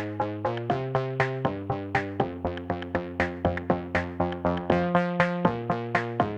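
Electronic background music: synthesizer chords over a steady drum-machine beat.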